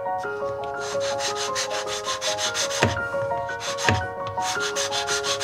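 A carbon brush being filed down with a hand file in runs of quick strokes, several a second, to make it fit an angle grinder's brush holder, with two knocks near the middle. Piano music plays underneath.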